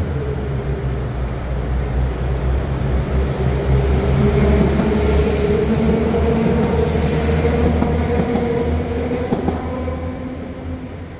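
A train moving close by: a steady low drone with a higher whine over it, fading away near the end.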